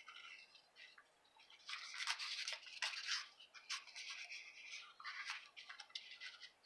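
Braided linen trim being wrapped and pulled around a small card-stock treat holder. The paper and trim rustle and rub in irregular scratchy bursts with small clicks, louder from about two seconds in.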